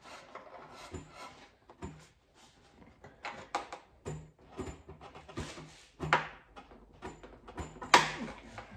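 Irregular metallic clicks, creaks and clunks of a VW Beetle's steel deck lid and its inner brace being flexed and bent by hand, with the loudest clank about eight seconds in.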